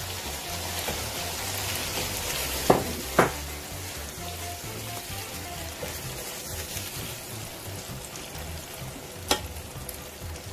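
Chicken frying in a pot with tomato purée just added, sizzling steadily while it is stirred with a spatula. Three sharp knocks of the spatula against the pot, two close together about three seconds in and one near the end.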